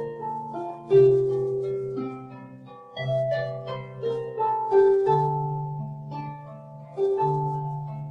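Harp playing slow, gentle music: plucked notes ring and fade, with a low bass note struck about every two seconds and higher notes over it.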